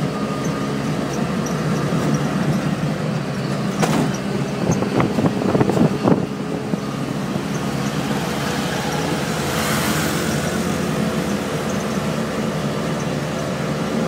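Auto-rickshaw's small engine running steadily under way, heard from inside the open cabin with road noise, and a few sharp rattles and knocks about four to six seconds in.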